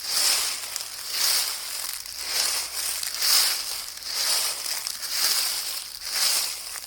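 Footsteps crunching through dry fallen autumn leaves, one crunchy step about every second at a steady walking pace.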